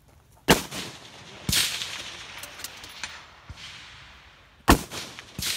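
Rifle shots from close by: two loud cracks about four seconds apart, with a weaker report and faint echoing cracks between them.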